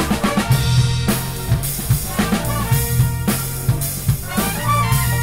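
Live big band playing a funk tune. A drum kit keeps a steady beat under electric bass and a trumpet and trombone section.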